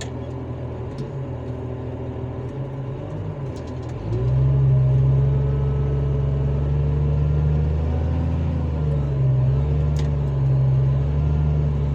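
Komatsu PC200 excavator's diesel engine being tested: running low at first, then revving up about four seconds in and holding high revs with slight dips. The machine proves to be low on power.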